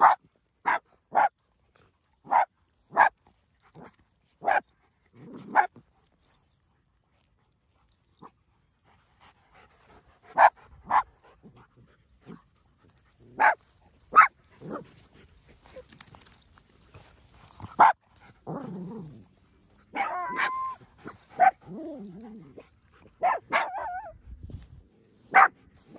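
Dogs barking at play in short sharp barks. A quick run of about eight barks is followed by a pause of several seconds, then scattered barks mixed with longer growl-like and whining sounds.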